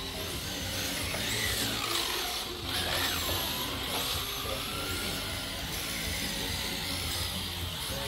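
Electric motors of several RC drift cars whining, rising and falling in pitch as the cars speed up and slow through the corners.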